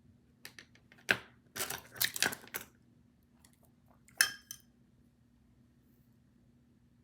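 Small hard objects being handled close by: a quick run of clicks and scrapes for about two seconds, then one sharp click with a brief ring a little after four seconds in.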